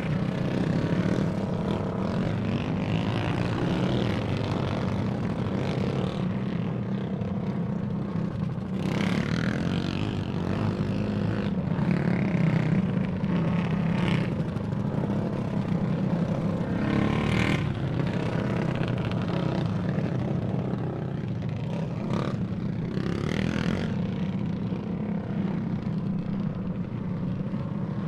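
Several racing go-kart engines running around a track, a continuous drone with individual karts passing close and louder every few seconds.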